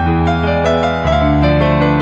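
Background music: a soft piano or electric-piano piece, with held notes changing over a steady bass.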